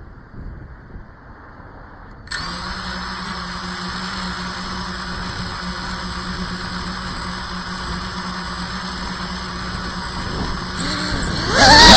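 FPV quadcopter's brushless motors starting up about two seconds in and spinning steadily at idle, a low hum with a high whine. Near the end they throttle up loudly, the pitch swooping up and down.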